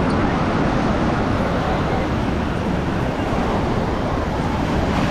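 Steady outdoor beach ambience: a continuous wash of road traffic, surf and wind, with no single sound standing out.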